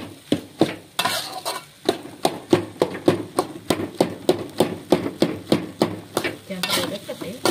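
Metal spatula scraping and knocking against a metal wok as fried rice is stir-fried, in a steady rhythm of about three strokes a second.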